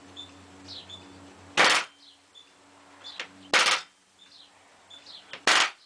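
Palm nailer driving twisty nails into a wooden frame: three short bursts of rapid hammering, about two seconds apart.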